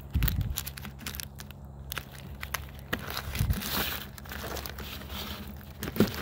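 Woven plastic tarp being dragged back, crinkling and crackling with pine needles and twigs caught in it, with scattered sharper crackles, the loudest near the end.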